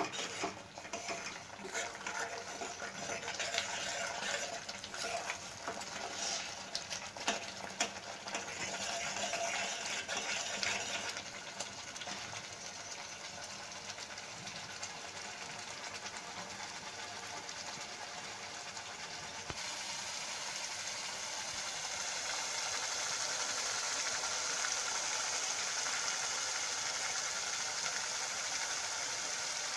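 Thick garlic chutney frying in oil in a non-stick kadhai: a steady sizzle and bubbling, with a spoon scraping and knocking against the pan for the first ten seconds or so. The hiss becomes a little louder and brighter about two-thirds in. The chutney is cooked through and ready.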